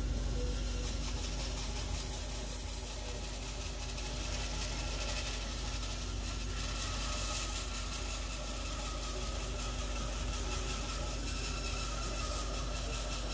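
Bandsaw running and resawing a small piece of plum wood: a steady machine drone with a constant high hiss that does not let up as the blade cuts through.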